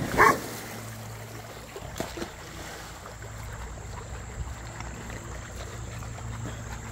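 A dog barks once just as another dog leaps into a swimming pool with a splash, then water sloshes and laps steadily as the dog swims across the pool.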